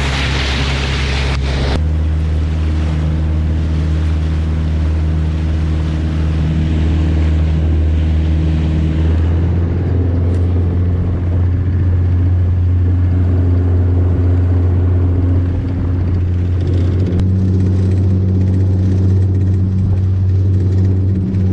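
Small fishing boat's engine running steadily under way, a low drone whose pitch shifts a few times. Water rushing past the hull is loud for the first couple of seconds.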